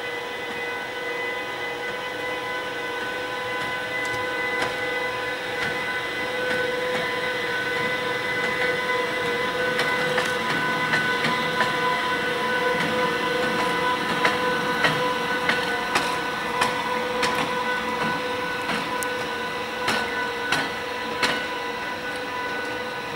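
British Rail Class 92 electric locomotive running light past at low speed, its traction equipment giving a steady whine of several tones over a rumble that grows louder as it comes alongside. In the second half its wheels click over rail joints and points.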